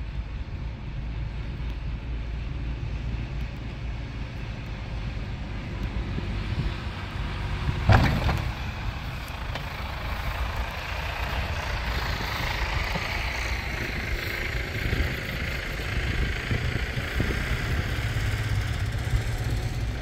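Snowplow truck's engine running as it approaches and passes, with a loud sudden noise about eight seconds in, followed by a steady hiss as it goes by.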